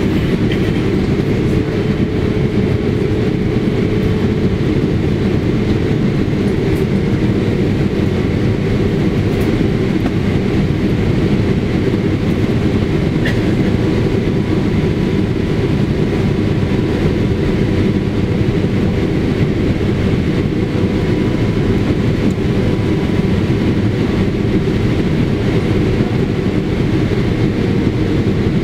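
Steady in-cabin noise of a Boeing 777 on approach: the deep rush of airflow past the fuselage and the drone of its GE90 turbofan engines, with a faint steady hum above it.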